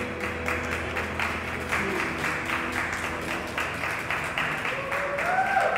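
A group of people applauding, a dense patter of hand claps just as music stops, with a short call that rises and falls near the end.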